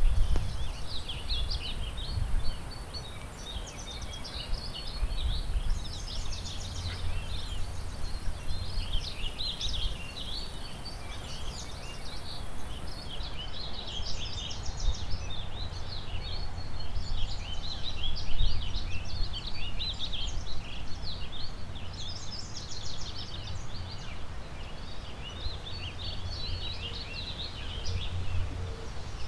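Many songbirds chirping and singing in overlapping phrases over a steady rush of river water, with a low, gusting rumble of wind.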